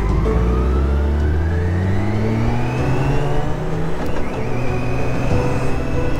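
BMW K1600 Grand America's inline-six engine pulling away and accelerating, its pitch rising for about three and a half seconds, then dropping at an upshift about four seconds in and running steadily in the next gear.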